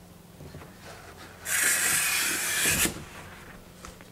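A packed bike dragged up out of a cardboard box, its packaging scraping along the cardboard: one loud rasping rub of about a second and a half, starting about a second and a half in, with lighter handling noises around it.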